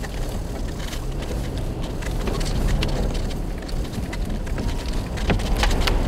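Inside an SUV's cabin while it drives slowly over a snow-covered road: a steady low rumble of engine and tyres. Scattered clicks and taps run through it, with a few louder ones about five seconds in.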